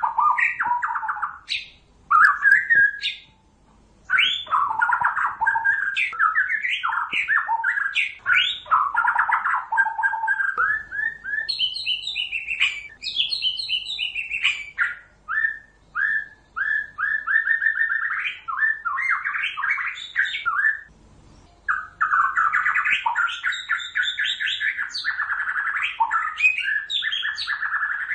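White-rumped shama singing: a long, quick run of varied whistled and chattering phrases with only brief pauses.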